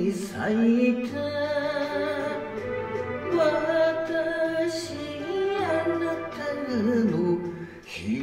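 A solo voice sings an enka ballad over a karaoke backing track, with long notes held in vibrato and slides between pitches.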